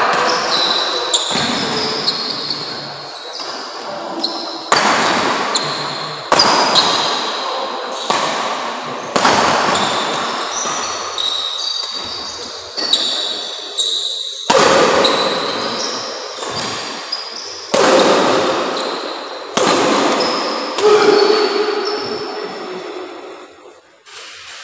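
Badminton rackets hitting a shuttlecock back and forth in a fast doubles rally, about a dozen sharp hits one every second or two, each ringing out in a large echoing hall, with short shoe squeaks on the court between them. The hits stop near the end as the rally ends.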